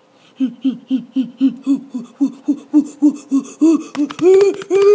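A boy's voice making a rapid, even run of short vocal pulses, about four a second, each dropping in pitch, like a staccato laugh or chant. After about four seconds the pulses turn louder, higher and longer.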